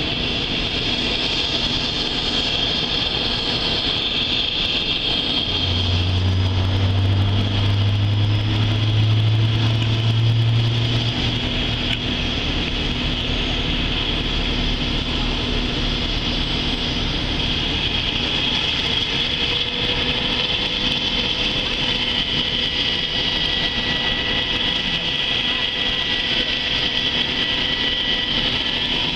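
Sikorsky UH-60 Black Hawk helicopter running on the ground for an engine test: a steady high turbine whine. A deep hum swells over it for several seconds about a fifth of the way in, and a faint tone climbs slowly in the second half.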